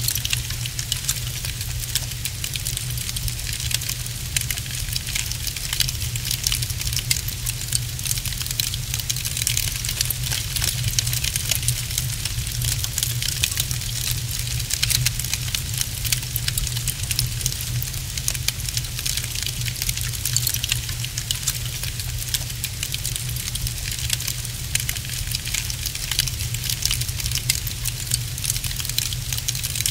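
Wood fire crackling in a fireplace: a steady, dense run of small pops and crackles over a low, even rumble.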